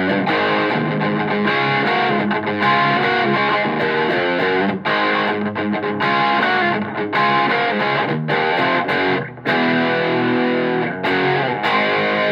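Epiphone Les Paul Standard goldtop electric guitar played through a Joyo Tweedy pedal and a Boss SD-1 overdrive with reverb: distorted rock riffing of chords and single notes, with a few short breaks, stopping right at the end.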